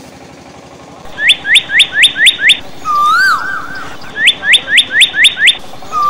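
Loud bird-like chirping starting about a second in. A run of six quick rising whistles comes at about five a second, then a longer call that rises and falls, and the same pattern repeats twice.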